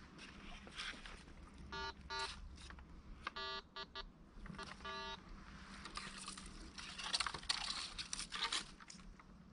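Metal detector sounding a string of short, buzzy beeps a few seconds in, its signal tone for metal under the search coil. Dry leaf litter then rustles and crunches loudly underfoot and under the coil.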